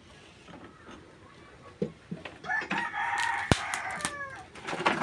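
A rooster crowing once, a call of about two seconds starting about halfway in and falling in pitch at its end. A sharp knock lands in the middle of the crow, with a smaller knock shortly before it.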